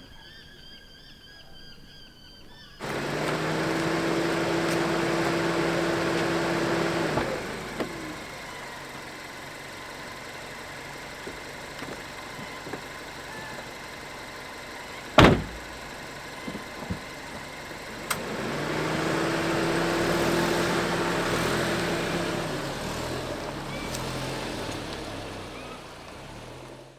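A vehicle's engine running with road noise: a steady hum that fades away about 7 seconds in and builds again later. A single sharp knock comes about halfway through.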